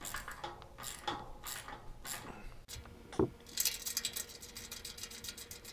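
Ratchet wrench clicking rapidly as it tightens bolts on the gantry carriage plate of a CNC plasma table, a fast run of clicks in the second half. Before it come scattered clinks of metal parts and a brief squeak.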